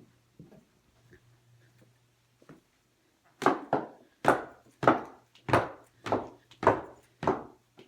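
Footsteps going down a staircase: a few faint knocks, then from about halfway in a steady run of firm steps, a little under two a second.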